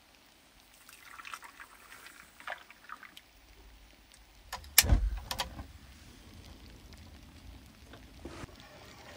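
Cookware handling while candied almonds are being prepared: small clicks and scrapes, then a loud knock with a deep thud about five seconds in, followed by a few lighter knocks.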